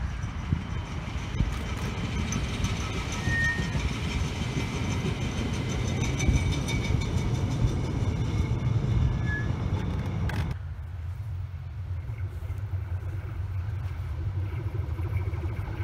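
ÖBB Cityjet electric multiple unit passing: rumble of wheels on rail with a steady high whine. About ten seconds in it cuts off abruptly to a quieter, steady low rumble.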